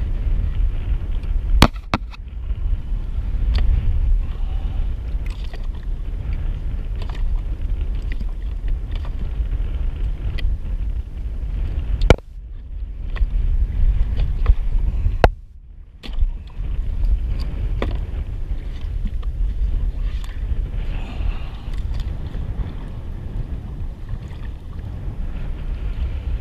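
Wind buffeting the microphone in a steady low rumble, broken by a few sharp knocks and clicks from handling on the kayak's plastic hull. The sound drops out briefly twice, a little past halfway.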